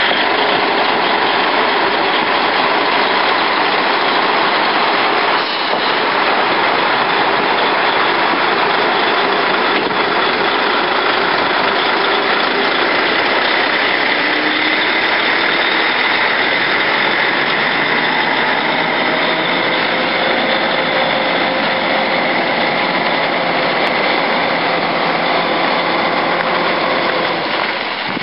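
Heavy truck diesel engine running steadily as a tractor unit pulls a long multi-axle trailer along a dirt road.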